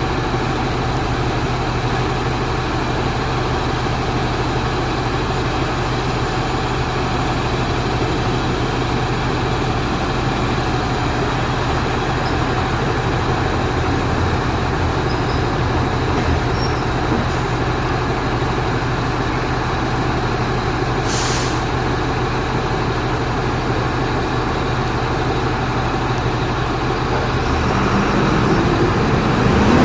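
Four-axle truck's diesel engine running steadily with a constant low hum, a short hiss about two-thirds of the way through, and the sound growing a little louder near the end.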